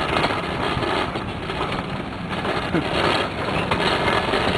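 A pedal surrey bike rolling over bumpy pavement: a steady rumble with rattling and knocking from the frame.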